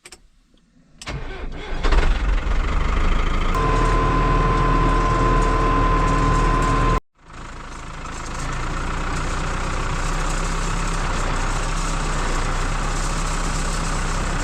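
Tractor engine starting and settling into a steady run, with a steady high-pitched warning tone sounding for a few seconds over it. After a sudden break near the middle, the engine keeps running steadily.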